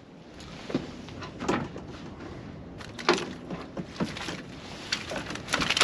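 A string of sharp knocks and clatters as fishing gear and containers are handled on the deck of a small boat.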